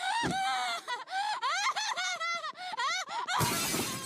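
A cartoon girl's long, high-pitched wailing that glides up and down, cut off about three seconds in by a crash of breaking window glass that dies away within a second.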